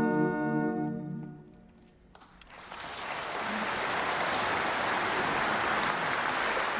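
A choir and orchestra's final held chord fades away in the first two seconds; after a brief hush, audience applause starts and goes on steadily.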